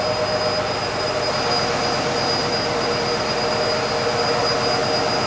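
Ship's diesel generator sets, inline seven-cylinder engines, running steadily in the engine room. They make a loud, unbroken machinery din with a constant high whine over it.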